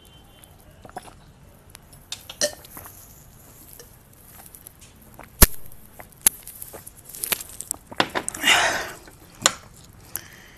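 A man drinking from a glass jar of lemonade: soft gulps and swallows with small scattered clicks, a sharp click about halfway through, and a short breathy sound near the end.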